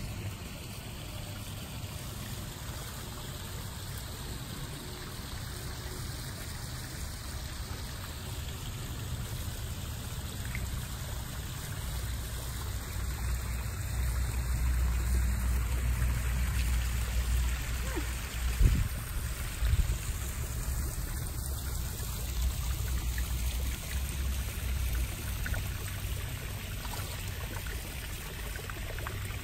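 Water splashing and trickling down a small rock waterfall into a backyard koi pond, as an even rushing hiss. A low rumble swells through the middle, and a single thump comes a little past halfway.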